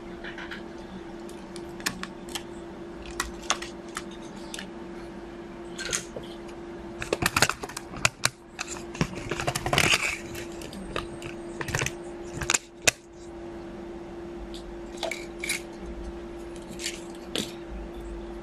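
Scattered clicks and light clatter of a small circuit board, its wires and metal chassis parts being handled inside an open stereo receiver. The clatter is densest and loudest about seven to ten seconds in, over a steady faint hum.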